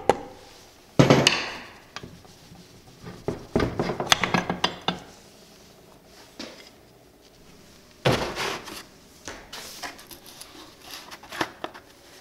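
Knocks and metallic clatter from the crankcase side cover of a 1986 Briggs & Stratton 5HP flathead engine being tapped loose with a soft-faced mallet and taken off. There is one loud knock about a second in, then runs of clinks and rattles as the cover and parts are handled.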